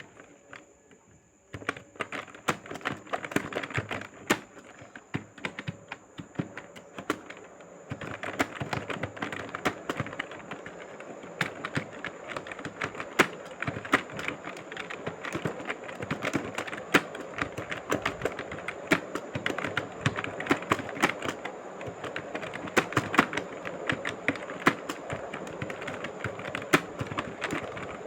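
Fast, continuous typing on an external computer keyboard, the keystrokes clattering in a rapid unbroken run from about a second and a half in. A faint steady high whine sits under it, and a steady rushing noise joins about eight seconds in.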